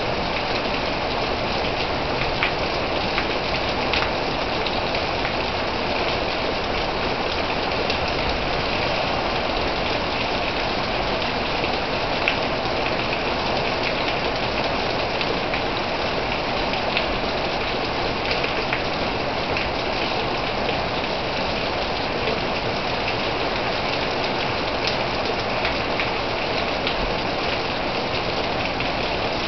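Heavy rain pouring steadily, a dense even hiss, with the odd sharper tap of a drop landing close by.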